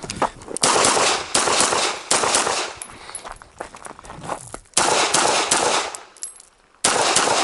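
Semi-automatic pistol shots fired rapidly, mostly in quick pairs, each crack trailing off in a short ring, with brief breaks between strings. A near-quiet gap comes about six seconds in before the next shots.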